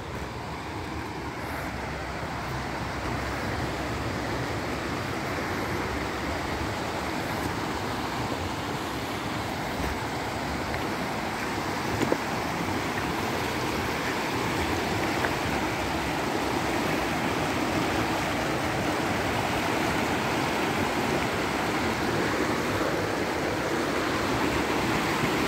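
Rushing water of a mountain stream, a steady even roar that slowly grows louder.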